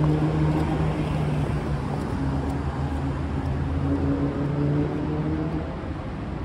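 Street traffic: a vehicle engine running nearby with a steady low hum that drifts slightly in pitch, over road noise.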